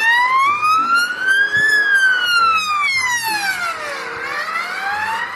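Ambulance siren wailing in one slow sweep. It rises for under two seconds, falls for about two and a half, then starts rising again near the end.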